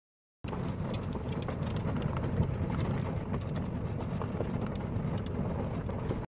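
Vehicle rolling slowly along a gravel dirt road: a steady low rumble of tyres, with small stones crackling and ticking under them. It starts suddenly about half a second in.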